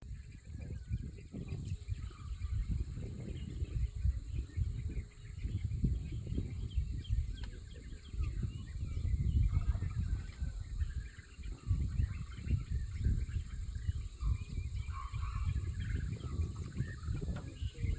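Outdoor wildlife ambience: faint scattered bird calls over a loud, uneven low rumble.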